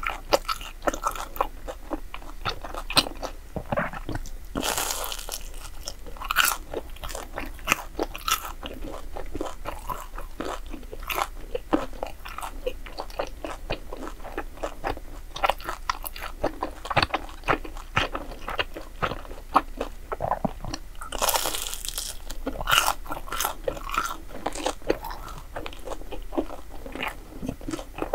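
A person biting and chewing crisp, crunchy food, steady irregular crunches, with two longer, noisier crunching stretches about five seconds in and about twenty-one seconds in.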